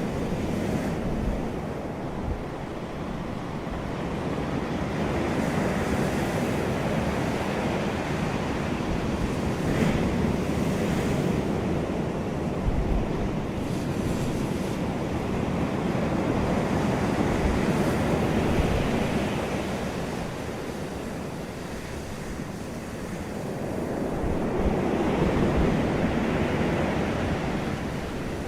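Sea waves breaking and washing on the shore, the surf swelling and easing every several seconds, with wind rumbling on the microphone.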